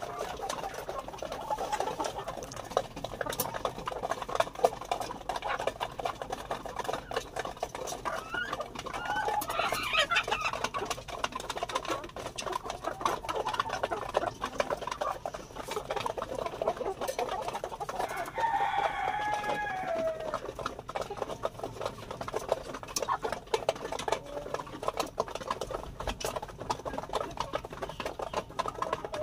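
A flock of Lohmann Brown and black laying hens clucking while feeding on millet from a tin feeder bucket, with a constant patter of quick pecking clicks. Twice, about a third of the way in and again past the middle, one bird gives a longer call that falls in pitch.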